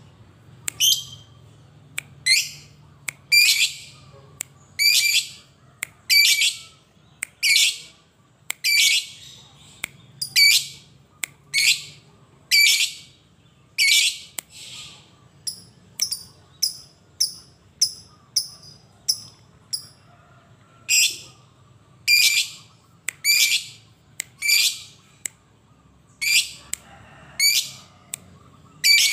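Caged lovebird calling: a long series of loud, shrill shrieks about one a second, with a faster run of shorter, higher chirps in the middle.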